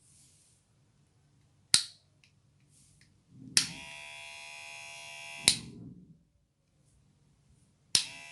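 Kemei KM1986+PG cordless hair clipper switched on with a click and running with a steady buzz for about two seconds, then switched off with a click and winding down. A sharp click comes a couple of seconds before it starts, and near the end the clipper clicks on and buzzes again.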